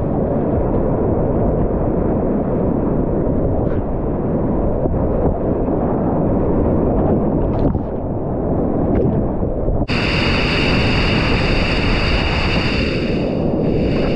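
Big whitewater rapid rushing and crashing around a kayak, heard from a camera on the paddler as a loud, muffled, steady roar of water. About ten seconds in, a brighter hiss with a thin high whine joins it.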